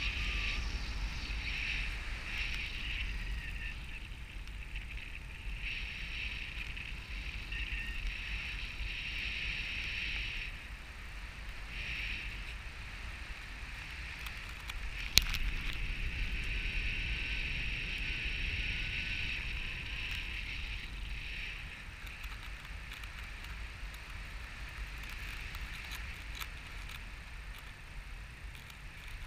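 Air rushing over the harness-mounted camera microphone in paraglider flight, a steady low rumble. A high-pitched tone comes and goes over it in stretches of a few seconds, and a single sharp click sounds about halfway through.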